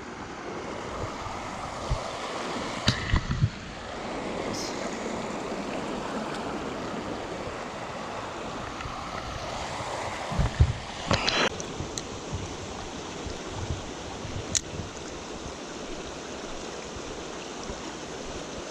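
Creek water running steadily, with a few short knocks and clicks close by about 3 seconds in and again around the middle.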